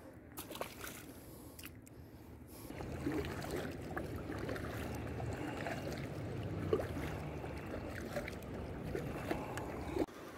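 Kayak paddle dipping and pulling through calm water from an inflatable kayak, with water swishing and dripping and a few light knocks. The paddling starts about three seconds in.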